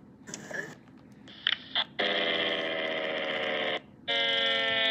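Electronic alarm: two short beeps, then a loud steady buzzing tone sounding in two long blasts of under two seconds each with a short break between, the pitch sagging slightly through each blast. It is an emergency alert sounding for a tornado warning.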